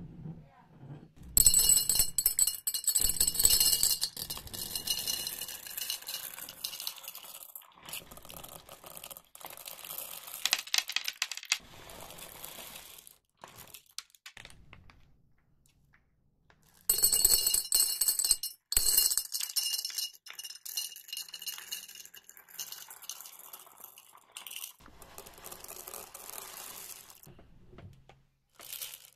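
Plastic candy packaging crinkling and tearing in two loud spells, with small hard candies clicking and clinking as they are poured and handled in between.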